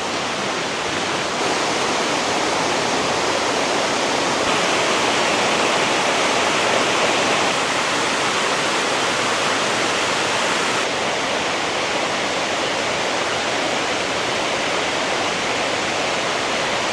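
Water rushing steadily over the rocky cascades of a multi-tiered waterfall, its tone shifting slightly a few times.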